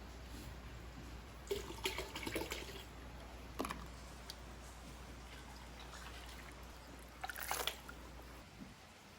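Household cleaning in a small room: faint water sounds with a few short clatters of objects, a sharp knock about three and a half seconds in and another clatter near the end. A low hum stops shortly before the end.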